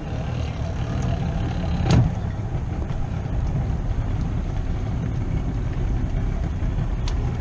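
Two-stroke outboard motor idling steadily as the boat comes in to the dock, with one sharp thump about two seconds in.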